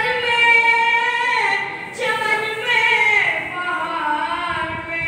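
A boy chanting a devotional recitation alone into a microphone, with no instruments, holding long notes that slide down in pitch between them.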